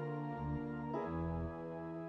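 Organ playing slow, sustained chords, the harmony changing every second or so over held bass notes.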